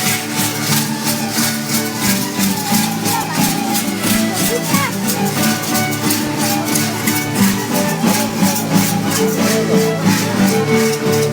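Live folk dance music: stringed instruments playing held melodic notes over a rattle shaken in a quick, steady beat.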